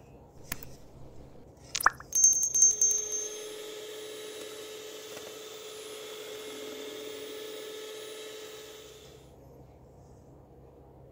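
Electric hand mixer beating cake batter in a stainless steel bowl. It starts about two seconds in with a brief loud clatter, runs with a steady motor hum, and stops about two seconds before the end.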